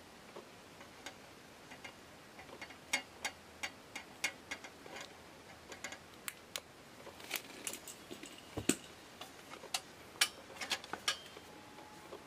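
Irregular light clicks and taps of metal being handled: the brass fount of a kerosene lantern and a long steel bolt knocking against fingers and metal. The clicks come close together, with the loudest knocks in the second half.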